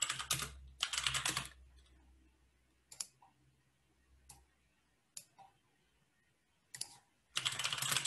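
Typing on a computer keyboard: two quick runs of keystrokes, then a few single key presses spaced a second or so apart, then another quick run near the end.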